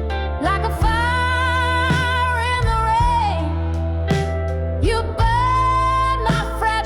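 Slow blues ballad music: a lead line holds long notes with vibrato over a steady bass and a drum hit about once a second.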